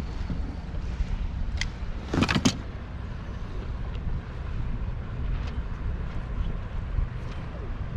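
Steady low rumble on a small inflatable boat, with a short clatter of knocks about two seconds in.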